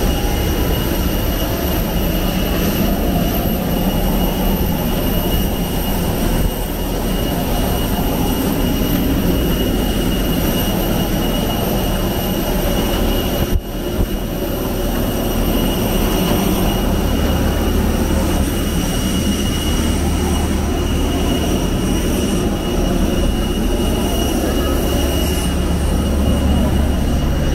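Jet airliner cabin noise: a steady drone of engines and airflow with several thin, steady high whines over it. The sound dips briefly about halfway through, and the low rumble grows stronger a few seconds later.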